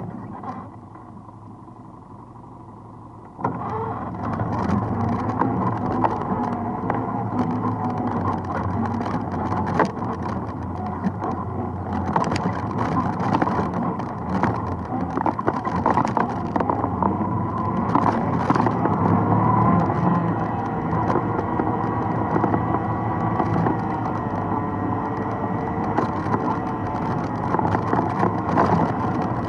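ATV engine running low and quiet, then opening up about three seconds in and pulling steadily along a rough trail, its pitch rising and falling with the throttle, with frequent knocks and rattles from the machine jolting over rocks.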